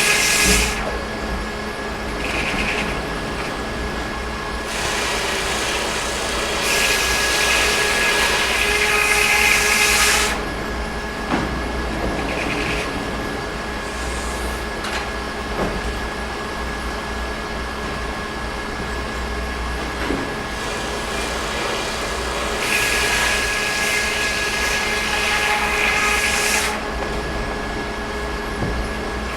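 Sawmill machinery running with a steady hum and a high, even whine, swelling twice into louder rushing noise for about five seconds each, once a fifth of the way in and again near the end.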